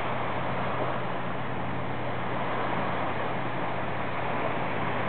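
Steady wind on the microphone over small waves washing onto a beach, with a low steady hum underneath.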